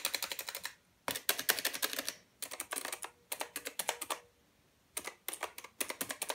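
Rampage Mecony R8 mechanical keyboard with clicky blue switches being typed on rapidly. The sharp key clicks come in several quick runs separated by short pauses.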